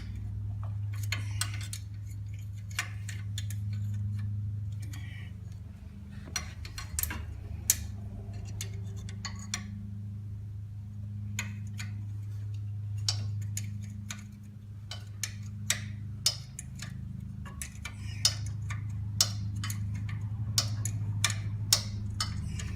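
Hand wrench clicking and tapping against metal in irregular, sharp ticks as 10mm bolts are backed out of a small mower engine, over a steady low hum.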